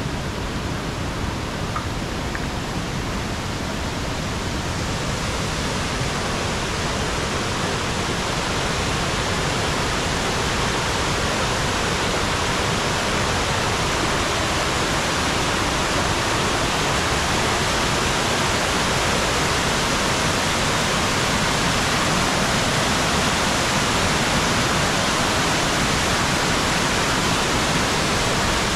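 Waterfall rushing: a steady hiss of falling water that grows a little louder and brighter over the first several seconds.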